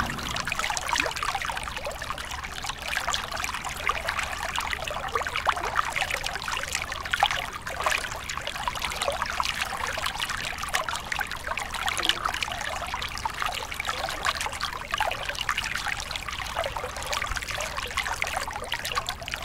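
River water running and splashing steadily, a shallow riffle trickling without a break.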